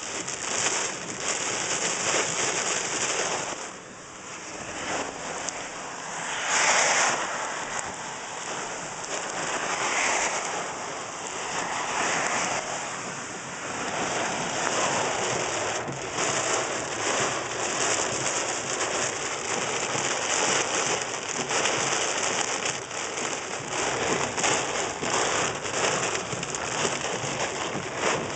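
Heavy rain pouring down in a severe thunderstorm, a dense steady hiss that eases briefly about four seconds in and swells loudest about seven seconds in.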